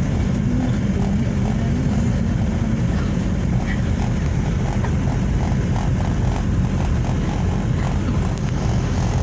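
Steady road and engine noise of a car driving along a paved road, heard from inside the cabin. About halfway through, a faint regular ticking joins in, about three a second.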